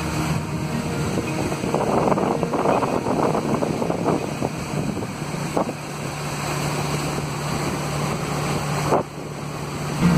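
Boat engine running at a steady hum, with water rushing past the hull and wind buffeting the microphone. A brief knock comes near the end.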